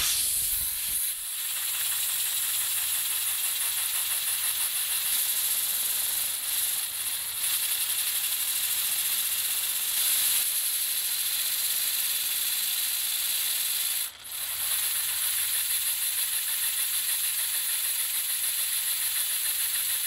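Compressed air hissing through a tiny LEGO pneumatic double-action engine with a 1x1 piston as it runs, with a fast, even chatter of exhaust pulses. The air cuts out for a moment about fourteen seconds in, then the hiss resumes.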